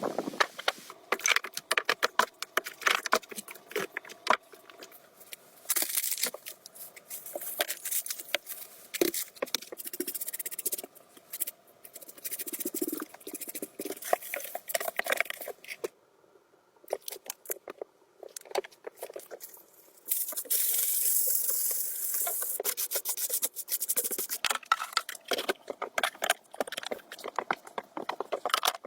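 Irregular scraping, rubbing and clicking from hands-on work, with longer hissing scrapes about six seconds in and again from about twenty to twenty-four seconds, and a brief pause in the middle.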